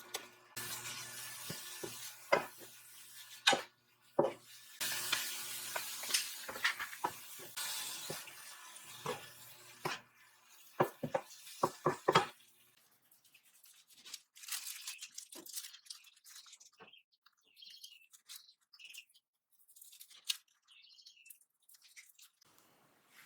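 Kitchen food-prep sounds: a steady appliance hum with a hiss under it and scattered clinks of dishes and utensils, the hum stopping about ten seconds in, followed by a quick run of sharp clatters and then only faint handling sounds.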